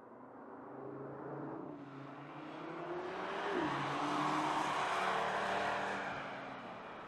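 2022 Audi RS 3's 2.5-litre five-cylinder turbo engine as the car drives by: the engine note climbs and then drops sharply about halfway through. Engine and tyre noise swell to a peak in the middle and then fade.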